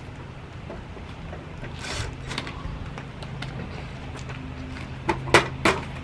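Cordless drill with a nut-driver bit running a screw into the air conditioner's sheet-metal panel, with a burst of driving noise about two seconds in over a low steady hum, then three sharp clicks near the end.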